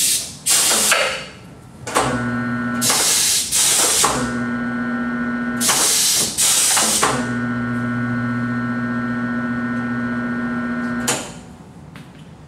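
Corghi A9220TI tyre changer working a wheel: several short hisses of compressed air as its pneumatic bead-pressing helper arm moves. From about two seconds in, the turntable's motor runs with a steady hum while the wheel turns to free the bead all round, stopping at a last hiss of air near the end.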